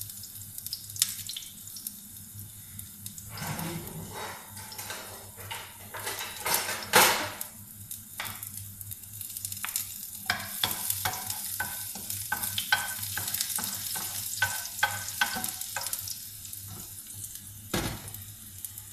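Chopped garlic sizzling in olive oil in a nonstick frying pan, with a utensil stirring and tapping against the pan in quick clicks, thickest in the second half. A louder brief rush comes about seven seconds in.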